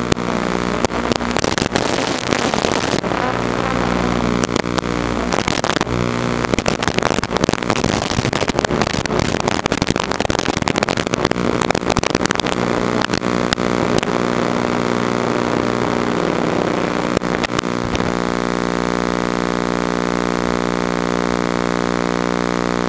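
FPV quadcopter's motors buzzing, heard through the crackly analog video feed, with frequent static clicks and dropouts as it flies. In the last few seconds the sound settles into a steady, evenly ticking buzz.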